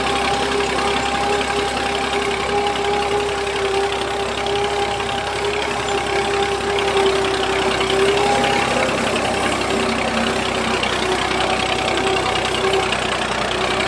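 An engine running steadily, with a constant even hum that does not change in pitch or level.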